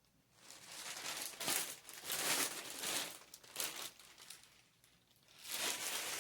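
Packaging from a keyboard unboxing being handled, rustling and crinkling in two stretches with a short pause between them.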